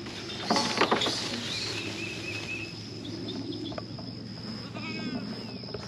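Kiko goats bleating: a loud, quavering bleat about half a second in, then a shorter, higher call near the end.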